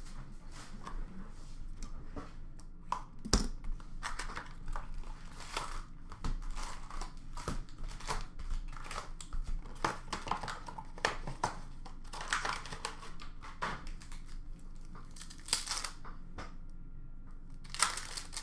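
Hockey card pack wrappers and box cardboard being handled, torn open and crinkled in a run of irregular crackles and rustles, with a sharp snap about three seconds in.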